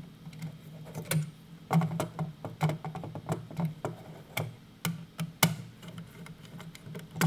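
Small screwdriver and wire working a screw terminal on a plastic controller terminal block: an irregular run of light clicks and ticks as the terminal screw is turned and tightened on the wire.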